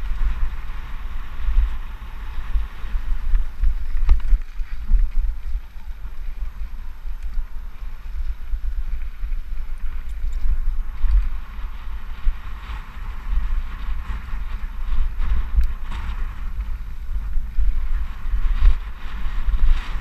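Wind buffeting a helmet-mounted camera's microphone during a fast mountain bike descent, over a steady hiss of tyres rolling on dry dirt trail, with a few short knocks as the bike hits bumps.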